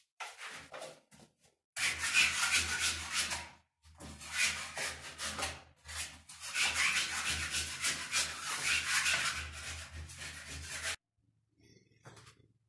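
A hand scraper scraping and tearing acrylic waterproofing coating off a plastered wall, in several long stretches with short breaks, stopping about two seconds before the end. The coating comes away like a film because it has not bonded to the wall.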